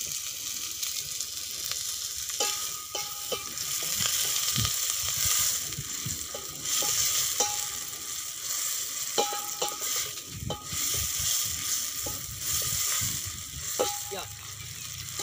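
Chopped onions, tomatoes and green chillies sizzling in hot oil in a steel pot, with a steel spoon stirring and scraping against the pot, giving short metallic clinks every few seconds.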